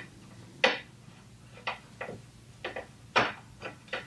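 Irregular sharp clicks and taps, about seven in four seconds, as a small hand tool is turned and re-seated on a bolt, tightening a crib's side panel to its frame.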